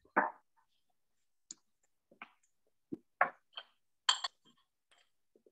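Scattered light knocks and clinks of kitchen dishes being handled and set down, about eight separate short sounds with silence between them.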